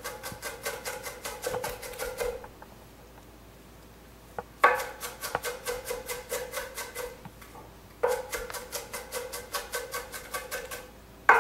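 Chef's knife chopping through a pile of diced onion on a wooden cutting board to mince it finer. The blade strikes the board in three runs of rapid, even strokes, with short pauses between them.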